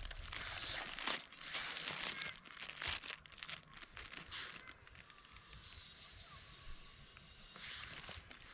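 Crinkling, rustling noise with scattered clicks, loudest over the first few seconds, fading, then swelling again briefly near the end.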